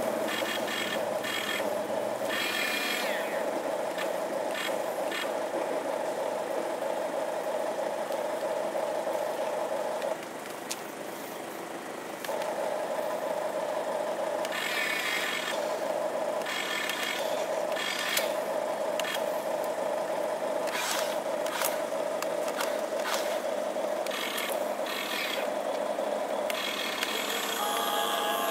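Small electric gear motors of a toy radio-controlled excavator whining steadily as it swings its boom and crawls on its tracks, with clicks and rattles from the plastic tracks and parts. The whine drops away briefly about ten seconds in, then resumes.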